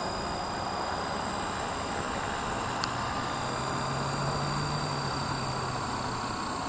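Blade 230S electric RC helicopter sitting on the ground with its rotors still spinning before the throttle cut: a steady whoosh with the high whine of its brushless motor, the whine sinking slightly near the end. A single sharp click about three seconds in.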